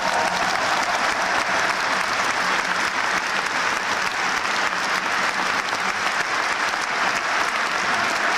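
Large stadium crowd applauding, a steady, dense wash of clapping.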